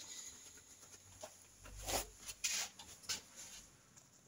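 Faint rustling and a few light clicks of leather work gloves being handled and put down at a workbench, with a soft bump about two seconds in.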